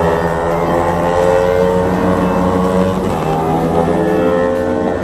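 Racing motorcycle engines running loud at high revs on the circuit, rising in pitch over the last couple of seconds as they accelerate.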